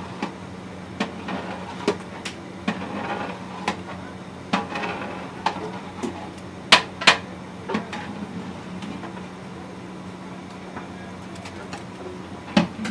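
Long metal spatula clanking and scraping against the sides of a large aluminium cooking pot as thick gravy is stirred, in irregular knocks with two loud ones close together a little past halfway and another near the end. A steady low hum runs underneath.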